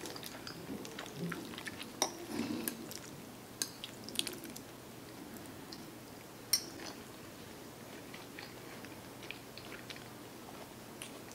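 A metal fork clinking and scraping against a glass baking dish of baked mac and cheese, with soft chewing in between. There are a few sharp clicks in the first seven seconds, and only faint small sounds after that.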